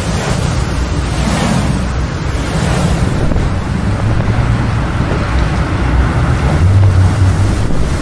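Loud, steady rushing wind sound effect with a low rumble that swells and eases.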